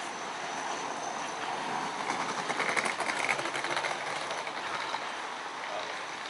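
A train running past near the RER station, a steady rushing rumble that swells to a peak about three seconds in, then eases off.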